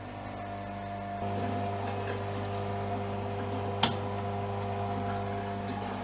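Beko washing machine humming steadily near the end of its wash program, the hum growing stronger about a second in, with a single sharp click near the middle.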